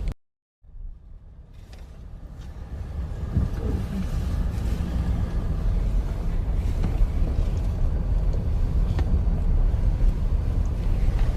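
Low, steady vehicle rumble that builds up over the first few seconds after a brief dropout.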